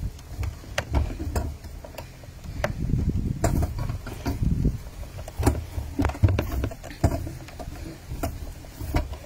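Handling noise from a phone being moved and pressed against clothing: a low rumble of fabric rubbing over the microphone, with irregular knocks and clicks.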